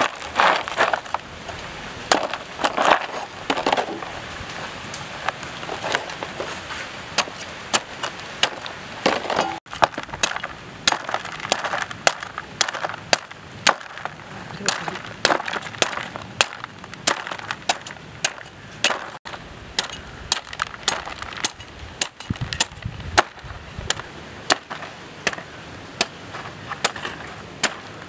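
Large kitchen knife chopping and slicing the spiky rind off a raw jackfruit against a wooden log: a steady run of sharp chops, two or three a second, with rasping cuts through the skin between them.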